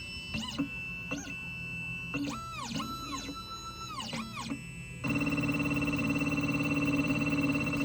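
Xhorse Dolphin XP-005 key machine's stepper motors whining in quick rising-and-falling pitch sweeps as the machine decodes a key. About five seconds in, a louder, steady motor hum takes over.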